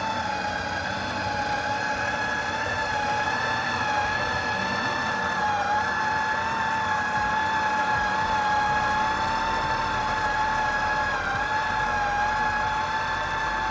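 Electric juicer motor running steadily with a high, even whine while it juices turmeric root.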